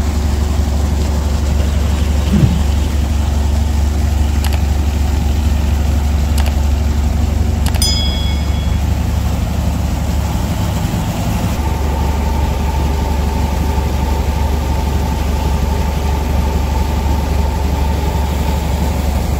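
Steady engine running with a low drone, probably driving the pump, over water gushing from a pipe and splashing into a pit of waste paper. A few short metallic clicks come in the middle, one of them ringing briefly.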